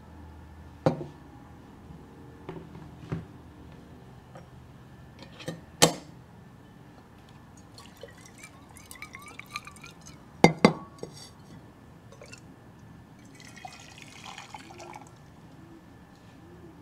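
Glass and ceramic pour-over coffee ware being handled: several sharp clinks and knocks as pieces are set down, including a quick double knock, with hot water swirled in a glass coffee server to warm it.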